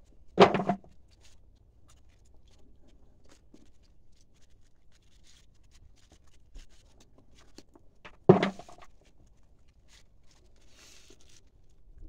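Gloved hands rustling and crackling through dry, spiky chestnut burrs on a dirt floor, in scattered small ticks. Two brief, louder sounds stand out, one about half a second in and one about eight seconds in.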